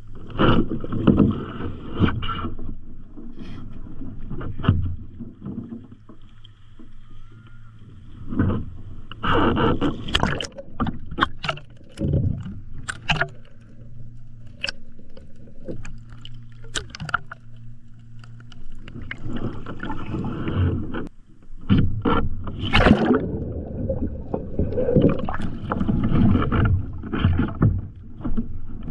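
Kayak paddling on open water: irregular paddle splashes and water sloshing around a skin-on-frame sea kayak, with sharp knocks and clicks now and then.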